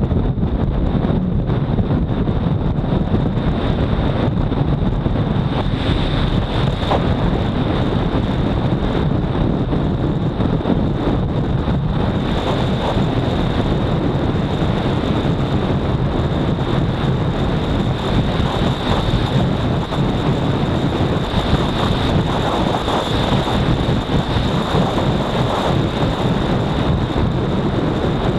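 Honda CBR250R's single-cylinder engine running steadily at high speed, under heavy wind rush on the microphone, with a thin high whine over it.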